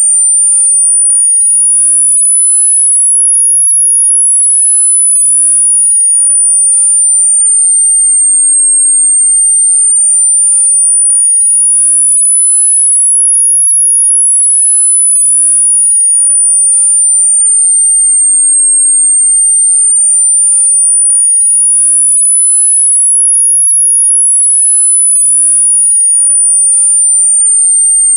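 Synthetic pure tone used as a tinnitus masking sound, very high-pitched and steady in loudness, gliding slowly up and down in pitch with one full rise and fall about every ten seconds.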